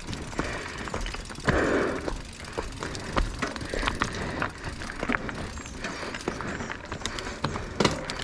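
Mountain bike rattling and clicking over a rocky trail, with irregular knocks from tyres and frame on rock and a brief louder rush of tyre or brake noise about one and a half seconds in.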